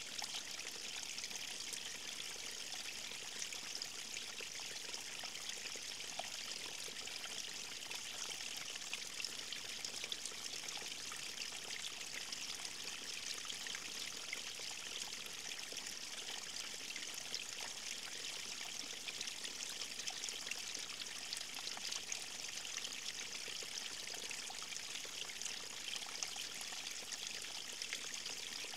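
River stream flowing: a steady, fairly high-pitched rush of moving water with fine splashing and trickling, no change in level.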